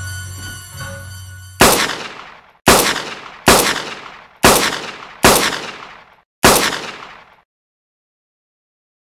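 Six handgun shots fired about a second apart, each loud crack followed by a fading echo. Suspenseful music cuts off at the first shot, a second and a half in.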